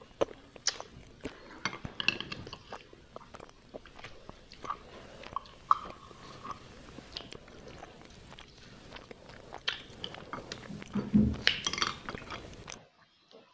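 Close-up eating sounds: chewing and biting, with sharp clicks and scrapes of a metal spoon against an opened tin can and a bowl, and a few brief ringing clinks about halfway. Near the end comes the loudest sound, a heavier knock, and then the sound cuts off.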